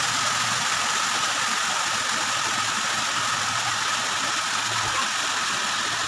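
Water rushing steadily over a stepped concrete weir in an even, unbroken noise, with a faint steady hum beneath it.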